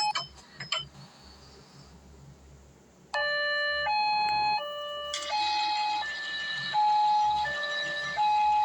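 Small siren sounding a two-tone hi-lo wail, switching between a higher and a lower note about every three quarters of a second. It cuts off with a couple of clicks just after the start, is quiet for about three seconds, then starts again and keeps alternating.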